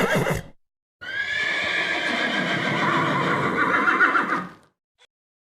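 An animal calling: the tail of one high-pitched call cut off about half a second in, then after a short gap one long high call of several seconds that wavers near its end.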